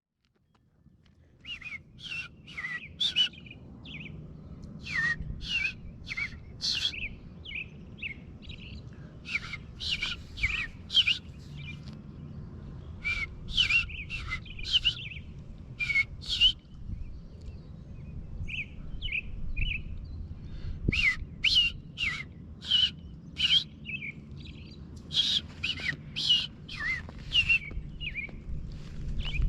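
American robins calling: bursts of sharp, chirping notes a few per second, broken by short pauses. Under them runs a steady low rumble.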